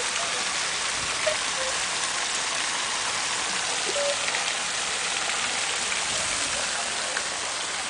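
Steady hiss of falling, splashing water, with a few faint brief tones over it.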